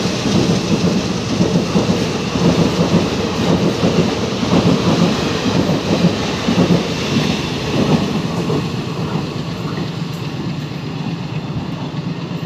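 Passenger coaches of an express train passing at speed: a loud, continuous rumble and clatter of steel wheels on the rails. It eases off a little over the last few seconds as the tail of the train goes by.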